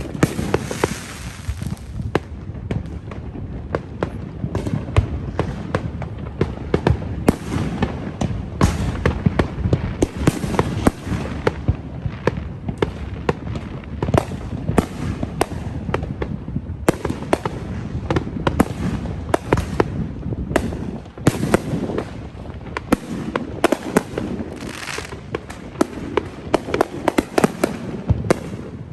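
Fireworks and firecrackers going off continuously: a dense barrage of bangs, pops and crackles, many overlapping, over a low rolling rumble.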